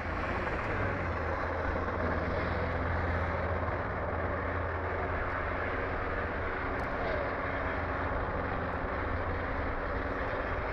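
Military helicopter flying low nearby: a steady, loud drone of rotors and turbine engines.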